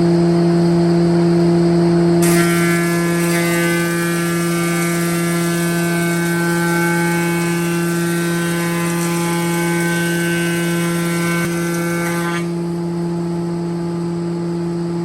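Newman LB-1872 planer running with a steady machine hum. From about two seconds in until about twelve, a higher whine with a hiss joins it, then stops while the hum carries on.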